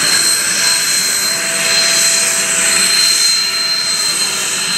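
Jet aircraft engines running as the plane taxies: a steady high-pitched whine over a loud rushing hiss.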